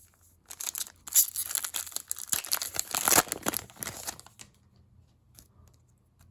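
Foil trading-card pack wrapper crinkling and tearing for about four seconds, a dense crackle that stops well before the end.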